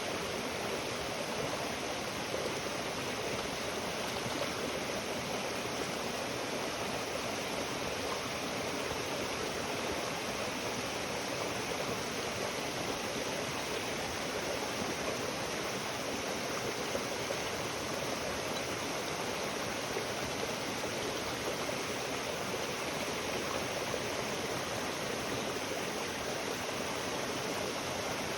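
Steady rushing of flowing water, even and unbroken throughout.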